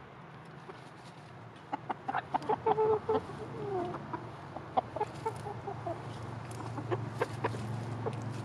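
Cochin and Silkie bantam chickens clucking softly up close, with a flurry of short calls and sharp clicks about two seconds in, then scattered clicks as they peck at the ground.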